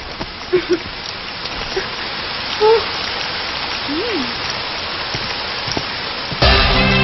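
Steady rain falling, its hiss slowly building, with a few brief faint sounds over it. About six and a half seconds in, a film song's music starts suddenly and loudly.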